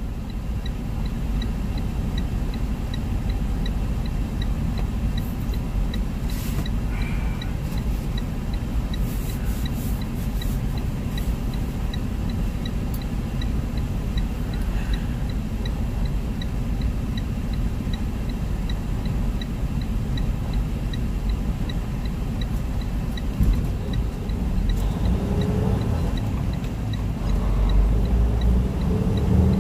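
Semi-truck's diesel engine idling, heard inside the cab as a steady low rumble, with a faint regular tick about once a second. Near the end the engine revs up as the heavily loaded truck pulls away.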